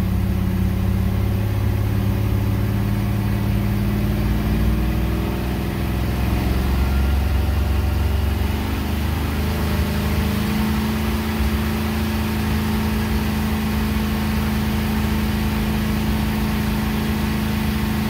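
1977 Dodge B200 van's 318 small-block V8 running continuously, freshly retimed with advanced ignition timing. It is heard up close through the open engine cover inside the cab. Its speed wavers around the middle, then holds steady.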